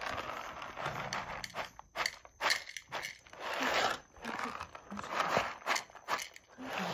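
Dry cat kibble pouring from a bag into a wooden dish with a rattling hiss, followed from about two seconds in by a cat crunching the kibble in short bursts of clicks.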